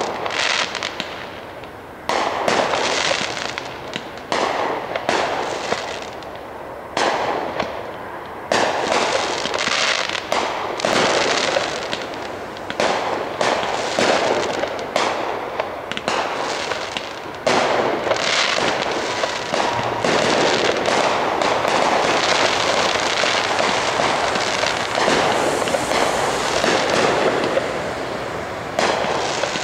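Aerial fireworks shells bursting one after another, each sudden bang trailing off. About halfway through the bursts close up into a near-continuous barrage.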